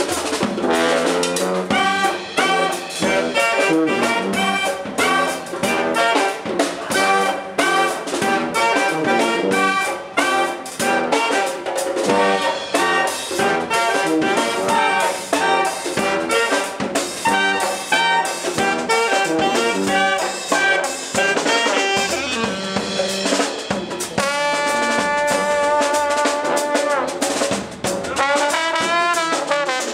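Brass band playing: trumpet, saxophone and trombone over a drum kit and hand drum. Near the end the horns hold a long chord, then carry on.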